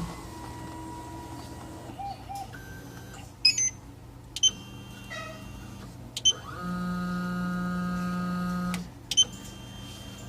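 Small CNC engraving machine: sharp clicks with short high beeps several times, and a steady stepper-motor whine for about two seconds in the second half, over a constant low hum.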